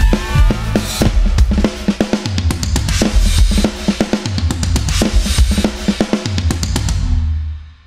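Instrumental band passage with no singing: a drum kit playing a steady beat over bass guitar notes, fading out near the end.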